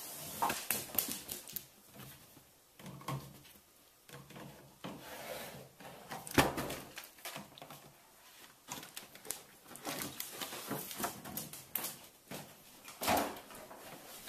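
A dog playing with a plastic gallon jug on a hard floor: irregular knocks, clatters and scrapes as the jug is dropped, dragged and bumped about, with the loudest clatters about six seconds in and again near the end.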